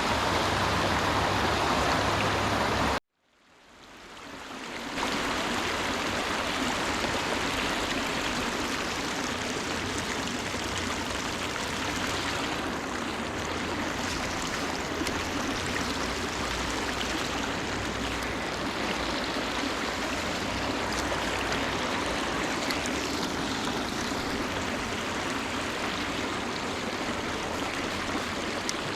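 Steady rushing of river water, an even hiss with no pitch to it. It cuts out abruptly about three seconds in and fades back up over the next two seconds.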